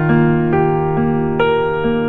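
Background music: electric piano playing a slow melody over sustained chords, new notes entering about every half second.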